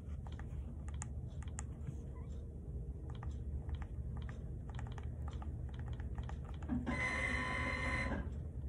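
Scattered light clicks and taps, like typing, over a low steady hum. About seven seconds in, a louder buzzing tone lasts just over a second.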